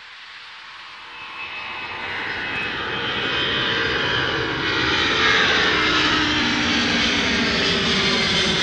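Airbus A300-600ST Beluga's two General Electric CF6-80C2 turbofans at take-off power as it climbs out. The sound swells over the first five seconds, then holds loud, with a whine that falls in pitch as the aircraft passes.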